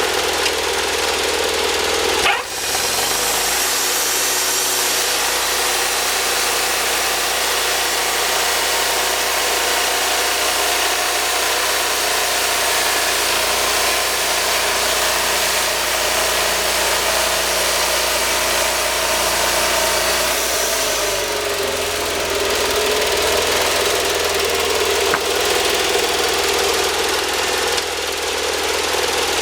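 Wood-Mizer band sawmill engine running steadily, with a click and a change in its low note about two seconds in and again about twenty-one seconds in.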